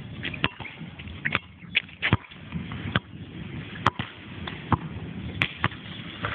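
A string of sharp knocks and taps at irregular intervals, never more than a couple a second, over a low rumble.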